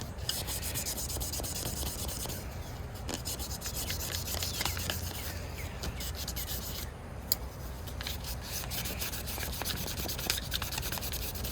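Fine 2,000-grit sandpaper rubbed back and forth by hand on a pocketknife blade to polish it: a steady scratchy rubbing that eases off briefly a few times.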